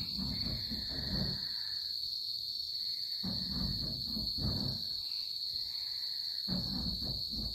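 A steady, high-pitched chorus of night insects such as crickets. Three spells of low rustling and scuffing close by come at the start, around the middle and near the end.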